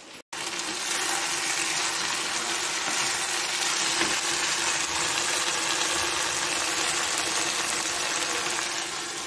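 Steady hiss of food cooking on the stove, with a faint steady hum underneath.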